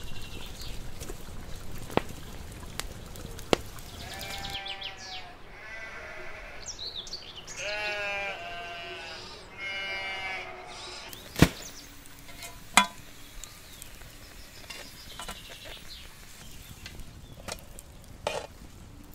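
A flock of sheep bleating: several wavering calls, some overlapping, in the middle of the stretch over a low hiss. A few sharp cracks come after the bleating, two loud ones close together.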